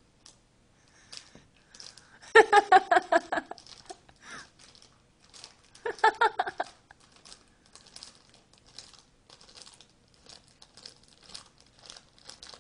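Plastic bags crinkling and crackling as a cat chews and bites on them, a steady run of small sharp crackles. Twice, about two seconds in and again near six seconds, a person laughs in quick rhythmic bursts, louder than the crinkling.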